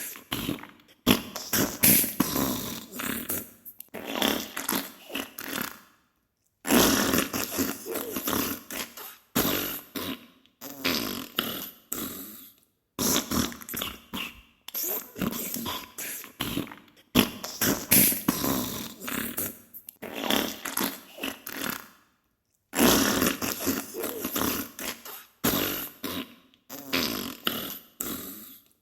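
Diarrhea sound effect: a run of sputtering farts in bursts of a second or two, separated by short pauses, with two longer breaks.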